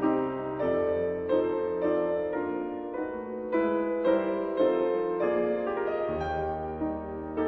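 Background piano music: a slow, gentle melody of sustained notes over occasional low bass notes.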